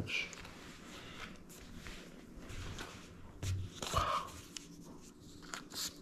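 Cotton T-shirt being unfolded and spread flat on a table, with fabric rustling and small taps and crinkles from stickers being handled; a louder rustle about four seconds in.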